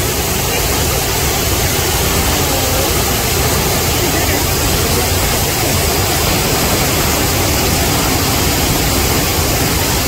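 Loud, steady rush of a large waterfall: a dense, even noise of heavy falling water.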